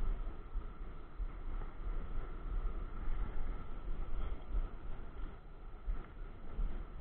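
Wind buffeting the microphone in uneven gusts, over the steady wash of sea surf breaking on the rocks below.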